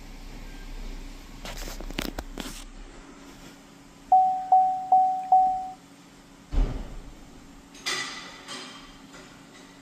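Four quick electronic beeps at one steady pitch, about two and a half a second, with a few sharp clicks before them and a single low thump after. They sound while a transmission control module is being written to over the diagnostic link.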